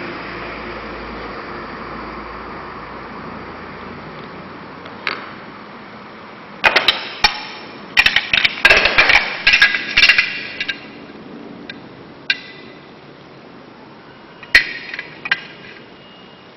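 Stainless steel shower door handles clinking and knocking as they are picked up and set down: a dense run of sharp metallic clinks with a short ring in the middle, then a few more clinks near the end, over a steady low hiss.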